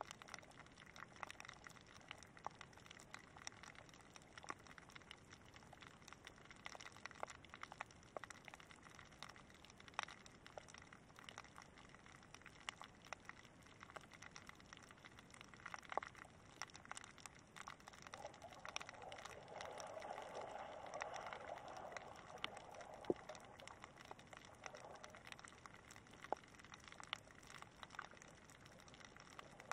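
Faint shallow-water ambience picked up by a camera resting underwater: scattered light clicks and crackles throughout. A soft rushing wash swells for several seconds past the middle.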